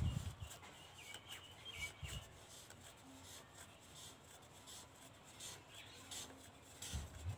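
Faint rubbing and scraping of a 1-inch threaded plastic pipe fitting being twisted loose by hand, with a few soft handling knocks.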